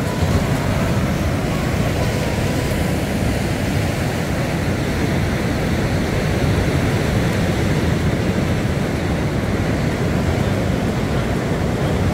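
Sea surf washing over a rocky lava shore, heard as a steady rush, with wind rumbling heavily on the microphone.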